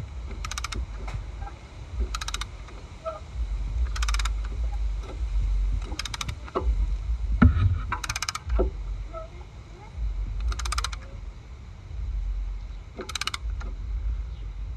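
Ratchet wrench clicking in short bursts of rapid clicks every couple of seconds, each burst a back-stroke of the handle, typical of a brake caliper piston being wound back in with a caliper press tool.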